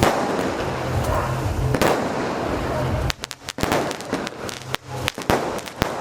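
Fireworks going off: a dense crackling hiss, then from about halfway a rapid string of sharp, separate firecracker cracks and pops.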